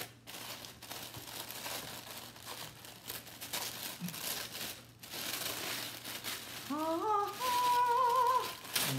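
Purple tissue paper crinkling and rustling as it is pulled out of a box and unfolded by hand. Near the end a woman's voice hums a note that rises, then holds with a slight waver.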